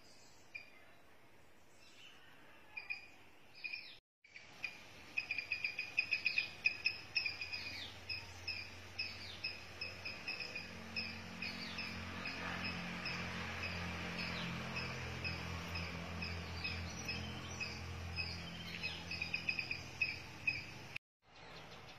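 A bird chirping in a fast, even series of short high calls, about three to four a second, over faint outdoor background. A low hum joins partway through, and the sound drops out briefly twice.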